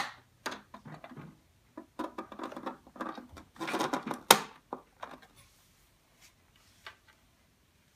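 Small plastic drawer of a Barbie Style Ultimate Closet toy being handled: scraping and clicking as it is slid and items are put in, with one sharp click about four seconds in, then it goes almost quiet.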